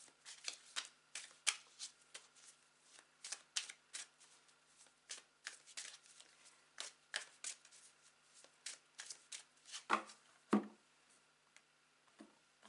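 A tarot deck being shuffled by hand, overhand style: a quiet, irregular run of short card slaps and flicks. There are two louder knocks about ten seconds in.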